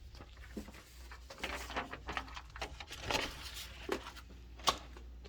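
Footsteps and small knocks on a hard indoor floor, uneven and irregular, with one sharper click near the end.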